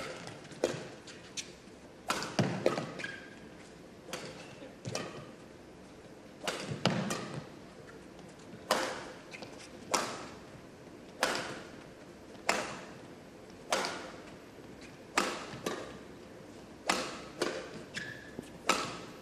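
Badminton rally: rackets striking the shuttlecock back and forth, a sharp hit about every second or so, some fifteen hits in a row, each with a short ring of hall echo.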